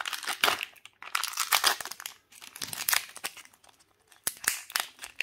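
Foil seal being peeled and torn off a Kinder Joy plastic cup, with crinkling of the foil in several bursts and a few sharp crackles near the end.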